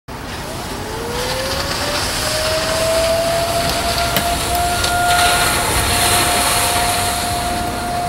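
Distant tornado warning siren winding up during its monthly test: its tone starts rising under a second in, climbs for about two seconds, then holds a steady pitch. A steady rush of background noise runs underneath.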